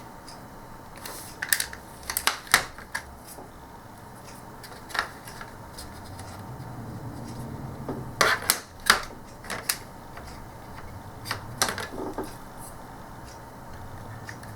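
Sharp plastic clicks and taps from a TV remote control's plastic case being handled and pressed together, coming in scattered clusters a few seconds apart.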